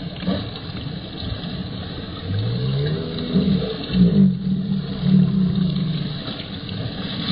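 Baitcasting reel cranked fast during a bass fight, a gear whirr that rises in pitch about two seconds in and then runs in short, uneven spurts as the handle turns.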